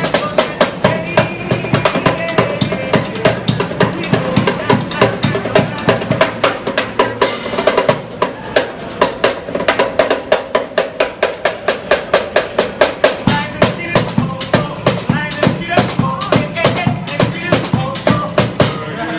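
A drummer playing a small drum kit with snare and cymbal in a fast, steady groove while singing over it. There is a brief cymbal-like wash about seven seconds in.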